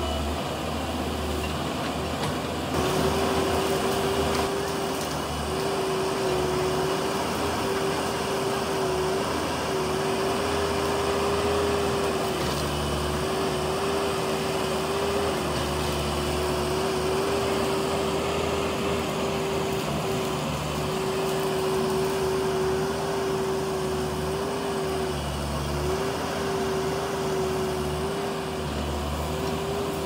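Diesel engine of a heavy earthmoving machine running steadily under load, with a constant whining note over a low rumble that swells and eases every few seconds as the load changes.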